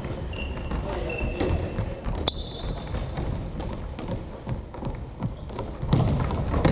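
Futsal players' indoor shoes squeaking on a gymnasium floor, with the ball thudding against feet and floor. There is a sharper squeal with a click about two seconds in and a loud kick near the end.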